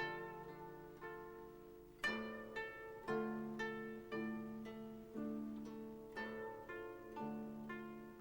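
Koto, the Japanese long zither, played slowly in single plucked notes that ring and fade, with a firmer pluck about once a second and lighter notes between.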